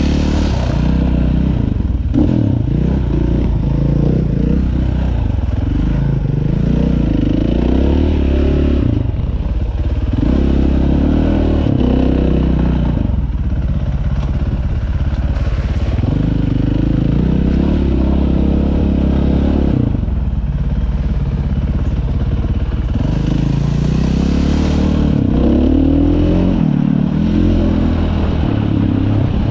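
Dirt bike engine running under way on a rough trail, the revs rising and falling again and again as the throttle is worked through the ride.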